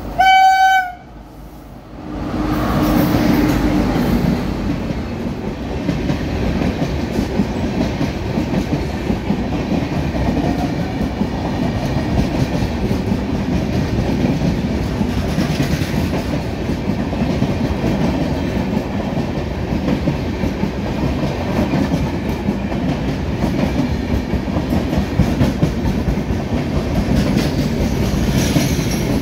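Indian Railways electric locomotive horn sounding one loud blast of about a second, then the train's long rake of LHB passenger coaches rolling steadily past, close by.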